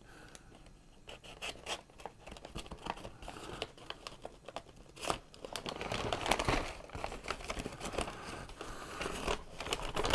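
A brown paper bag being opened and handled: crinkling and tearing of the paper in a run of quick rustles that grow louder about halfway through.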